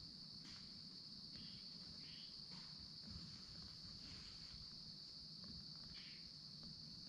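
Faint, steady, high-pitched insect chorus, with a few short faint chirps over it.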